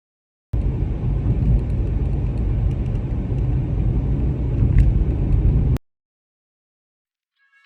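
Road and engine noise of a moving car, a steady low rumble that cuts in suddenly about half a second in and stops abruptly about two seconds before the end.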